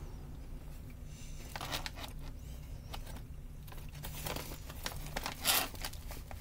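Plastic snack bag crinkling in a few short bursts as a hand reaches in for wafers, the loudest near the end.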